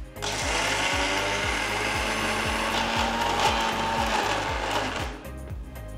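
Electric mixer grinder grinding soaked urad dal with no water added, switched on just after the start and stopped about a second before the end.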